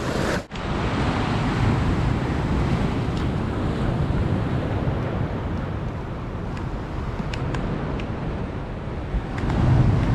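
Wind buffeting the microphone over sea waves washing against shore rocks, with a wave splashing up louder near the end.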